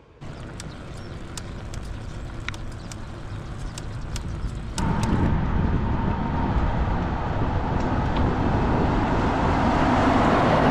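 Road noise while riding a bicycle along a highway: a steady rush of wind and tyre noise, with a motor vehicle growing steadily louder in the second half.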